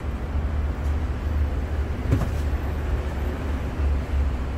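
Street traffic: a steady low rumble of vehicle engines going by.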